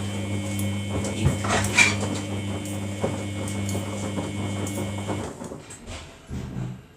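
Samsung front-loading washing machine running its rinse, a steady motor hum and whine with a few knocks from the load in the drum, stopping about five seconds in.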